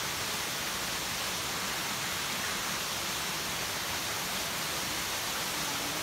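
Steady rushing of water from a small waterfall and rocky mountain stream, an even hiss with no changes.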